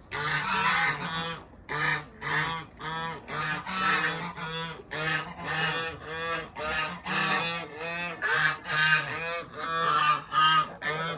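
Geese honking over and over, short calls about two a second.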